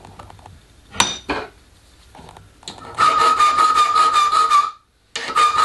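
A hand file rasping across the end of an 8 mm threaded rod held in a bench vise: two long, slow strokes with a steady ringing tone through each, cutting a flat for a hexagon end. Two sharp knocks come about a second in, before the strokes.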